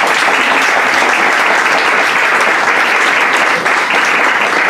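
Audience applauding, a dense, steady clapping of many hands that stays loud throughout.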